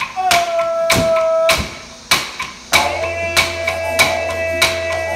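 Aboriginal clapsticks struck in a steady beat, a little under two strikes a second, over a long held note. A low didgeridoo drone comes in about three seconds in.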